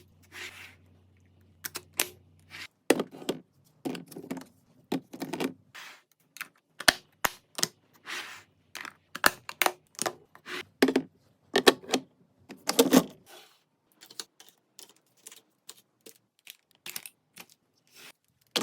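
Containers, lids and packages handled and set down in a kitchen: an irregular run of clicks, taps and knocks with short scraping rustles. A low hum stops about two and a half seconds in.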